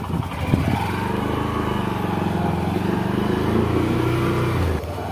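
Motorcycle engine pulling away, its note rising slightly as it speeds up, then dropping quieter near the end.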